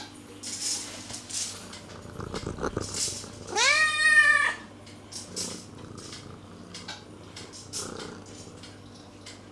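A domestic cat meows once, a single arching meow about three and a half seconds in, asking for a treat. Faint clicks and rustling are heard around it.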